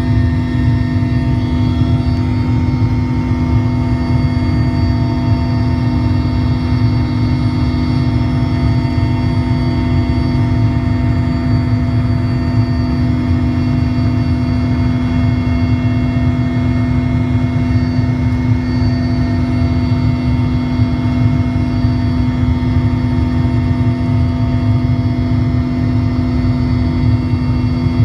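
Steady cabin noise of a Mil Mi-17 helicopter in flight: a loud low rumble with a strong steady hum and several higher steady whining tones from the engines, rotor and gearing, heard from inside the passenger cabin.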